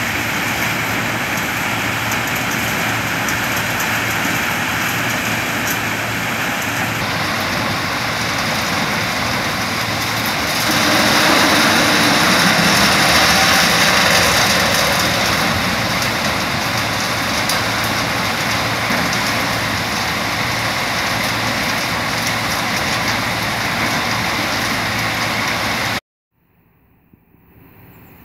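Steady rushing of crushed stone pouring from a loading silo into a railway hopper wagon, over the low running of a V10B diesel shunting locomotive's engine. The rush swells for a few seconds about ten seconds in. Near the end it cuts off abruptly, leaving only faint wind noise.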